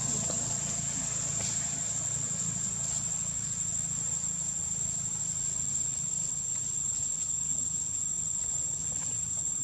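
Insects buzzing in one steady, unbroken high-pitched tone, with a low steady hum underneath.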